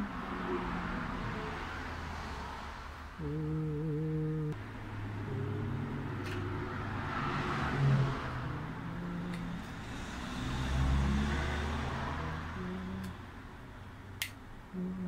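A slow tune of held low notes, each about a second long and changing pitch from note to note, over a steady background hiss. A few light clicks from handling the plastic fuel pump assembly fall in the second half, the sharpest near the end.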